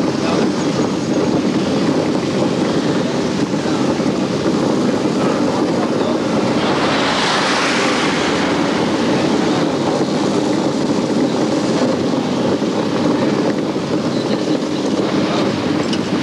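Steady rumbling outdoor noise of vehicle engines and wind on the microphone, with a hissy swell about seven seconds in that fades by nine.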